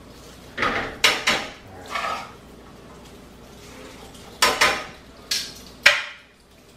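Metal tongs clanking against a frying pan while spaghetti is tossed and turned in it: about seven short, sharp clatters at uneven intervals, with quieter gaps between.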